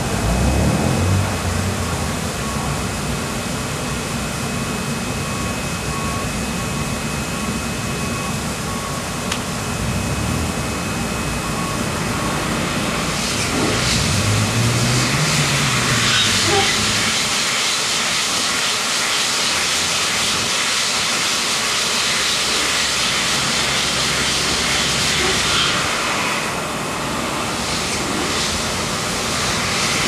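Shopping-basket washing machine running: a steady machine hum under a hiss of spraying water. The hiss grows louder about halfway through and drops back near the end.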